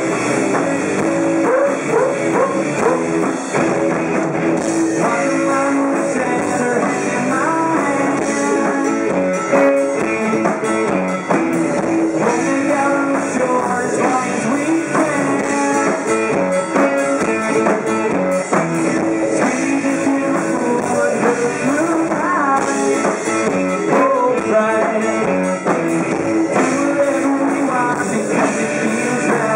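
Live rock band playing, with electric guitar and drums.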